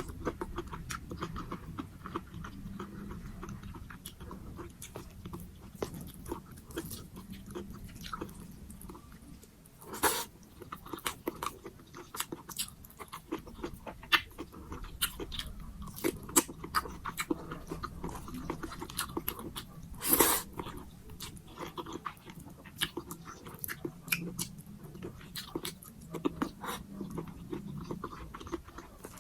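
Close-miked chewing and mouth sounds of someone eating pork sinigang, with many short wet clicks and smacks. There are two louder, longer noises, about ten and twenty seconds in.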